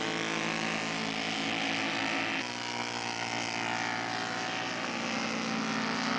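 Engines of radio-controlled scale WWI fighter models, Fokker D.VIIs and a Nieuport 28, running in flight with a steady drone. The sound changes abruptly about two and a half seconds in.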